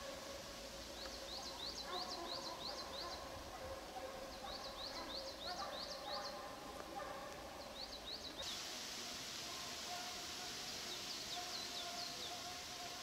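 Russian hounds baying in the distance on the chase, a run of drawn-out howling notes coming in several stretches. A songbird repeats short high chirps in quick runs, and a steady high hiss comes up about eight seconds in.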